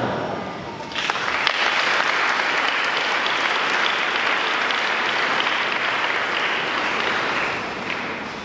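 Congregation applauding in a large church. The applause starts suddenly about a second in, holds steady, and dies away near the end.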